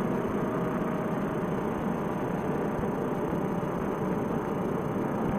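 Fresh Breeze Monster paramotor engine running steadily, mixed with a dense rushing noise.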